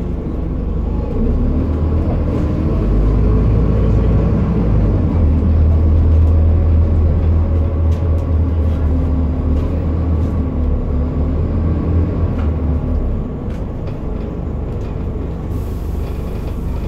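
Scania N230UD Enviro400 double-decker bus's five-cylinder diesel engine heard from inside the saloon, pulling away under load. It grows louder from about two seconds in and eases off after about thirteen seconds.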